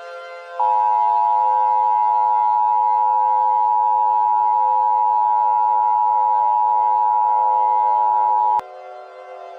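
Emergency Alert System two-tone attention signal sounding steadily for about eight seconds. It starts just under a second in and cuts off sharply with a click, over a steady low drone.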